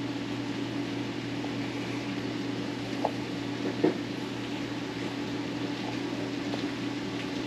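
A steady low mechanical hum, such as a kitchen fan or appliance makes while running, with two faint clicks about three and four seconds in.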